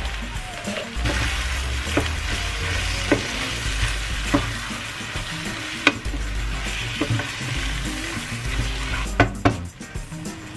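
Minced beef and beans sizzling in a stainless steel frying pan while a wooden spatula stirs and scrapes through them, with several sharp knocks of the spatula against the pan.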